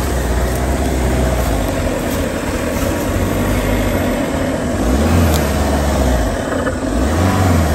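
Mahindra Thar's engine running as the vehicle crawls along a forest track, with the revs rising briefly about five seconds in and again near the end.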